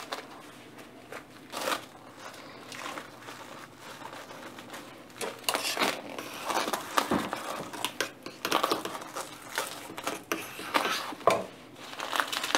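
Plastic cling film crinkling and crackling as bundles of grape vine leaves are rolled up in it by hand, in irregular bursts that get busier about halfway through.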